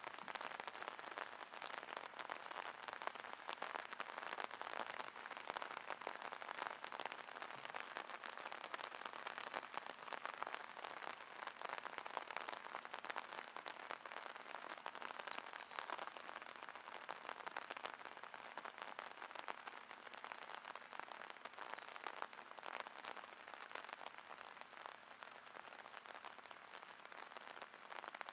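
Steady rain falling on the water of a drainage ditch, a dense, even patter of drops.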